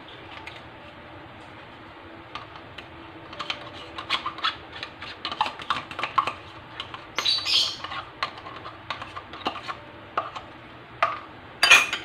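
A metal spoon scraping and tapping as it scoops thick Greek yogurt out of a plastic cup into a ceramic bowl: a run of small irregular clicks and scrapes, with a longer scrape about seven seconds in and a louder one near the end.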